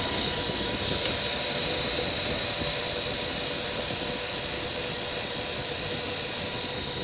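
KAESER SM11 7.5 kW rotary screw air compressor running steadily after building the receiver to about 8.5 bar: a constant high-pitched whine over an even mechanical hum.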